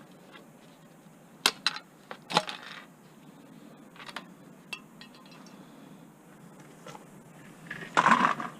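Computer parts being handled while a desktop PC is taken apart: light metallic clinks and knocks, the sharpest about one and a half and two and a half seconds in, a few faint ticks after, and a short scrape near the end.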